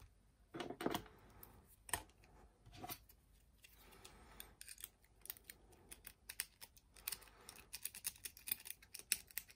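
Steel lock pick clicking and scraping in the keyway of a brass Yale night-latch cylinder that has a tension wrench in place, with a few handling knocks early on. The light metallic clicks are sparse at first and come thick and fast over the last few seconds as the pins are worked.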